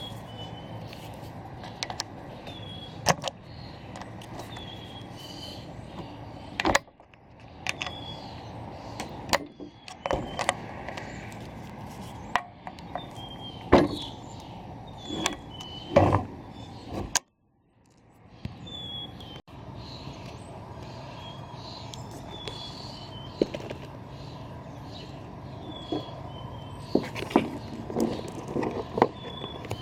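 Intermittent sharp clicks, clinks and knocks of metal parts and hand tools being handled while a reel push mower is taken apart or put back together.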